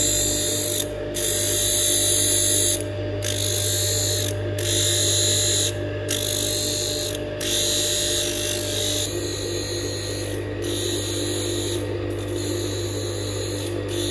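Electric blade-grinding machine running with a steady hum while a hair-clipper blade is ground against its spinning wheel, giving a high hiss that breaks off briefly about every one to two seconds.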